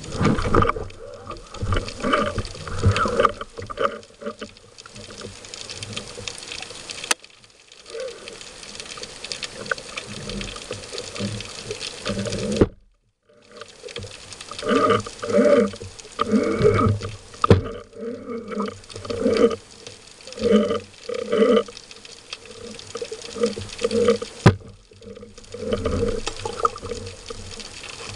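Water churning and gurgling around an underwater camera that is moving with a diver's fin, with bubbling in uneven bursts. The sound cuts out briefly a little before halfway, then comes back in closely spaced bursts as the camera moves just under the surface.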